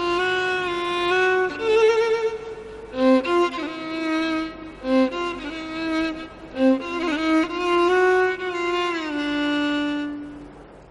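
Background music: a slow, mournful solo melody on a bowed string instrument, with long held notes, sliding pitches and vibrato. It fades out near the end.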